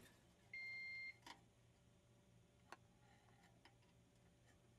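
A short electronic beep, one steady high tone lasting about half a second, followed by a few faint clicks as small wiring parts are handled at a controller's terminal block.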